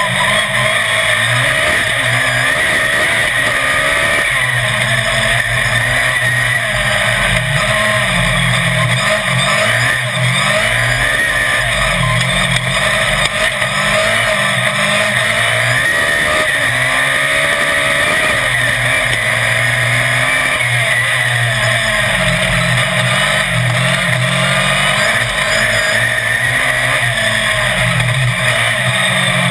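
Autocross race car's engine under hard load on a dirt track, its pitch repeatedly climbing and dropping back as the driver accelerates, shifts and lifts, over a steady rush of wind on the bonnet-mounted camera.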